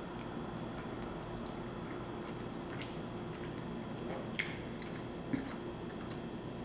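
A person chewing and slurping cheesy spaghetti noodles off a plastic fork: soft wet mouth sounds with a few small clicks, the sharpest about four and five seconds in, over a faint steady hum.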